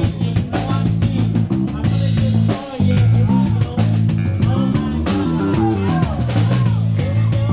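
Live rock band jamming: electric guitar, bass guitar and drum kit playing together, with a short break in the bass line about two and a half seconds in.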